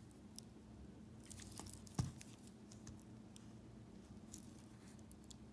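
Hamilton Khaki Frogman's stainless steel bracelet and folding clasp clinking and clicking faintly as it is handled, with a run of small clicks about a second in and one sharper knock about two seconds in.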